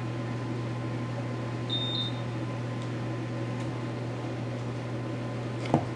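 Steady low mechanical hum of a kitchen oven's fan running while it preheats, with a brief high tone about two seconds in and a light tap near the end.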